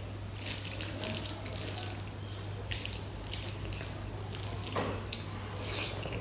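Fingers squishing and mixing cooked rice into runny kadhi on a steel plate: irregular wet squelching, in clusters about half a second in, around three seconds and near the end. A steady low hum runs underneath.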